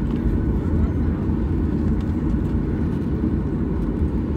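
Steady low rumble inside the cabin of a Boeing 737-800 taxiing, its CFM56 engines running at idle thrust.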